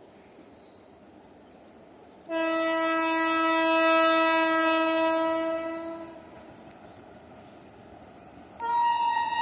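Locomotive horn of the approaching 17007 Darbhanga Express, still out of sight. It sounds faintly at first, then gives one loud blast of about four seconds that fades away, and near the end a second, higher-pitched horn note begins.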